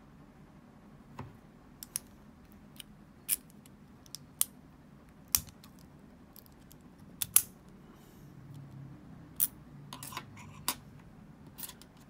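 Scattered sharp metallic clicks and clinks of a brass Tri-Circle padlock being worked with its key: the key goes in and turns and the steel shackle opens. The key is then laid down on a wooden tabletop.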